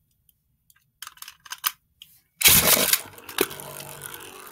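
Beyblade Burst tops being relaunched: a few light plastic clicks as the top is set on the launcher, then a little over halfway through a sudden loud rip as the launcher's ripcord is pulled. The tops then whir as they spin and scrape in the plastic stadium.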